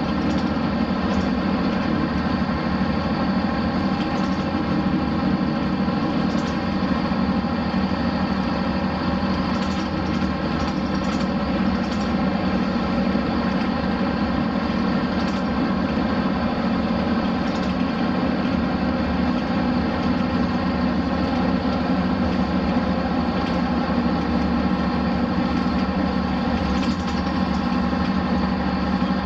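Hino Blue Ribbon RC monocoque bus's diesel engine running steadily, with occasional light clicks over the drone.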